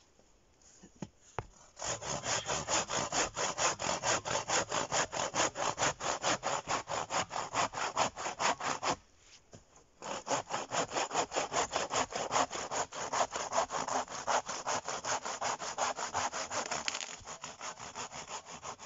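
Hand saw cutting through a dry, slightly rotten fallen log in quick, even strokes, pausing for about a second midway and then carrying on.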